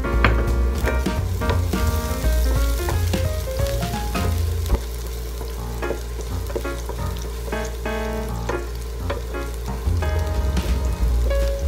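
Food sizzling as it fries in a pan, a steady hiss under background music.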